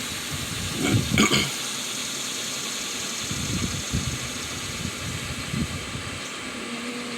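Steady hiss-like background while a honeybee hive is open and its frames are being handled, with a couple of knocks about a second in and a few soft thuds later. Near the end a steady low hum starts, like a single bee buzzing close by.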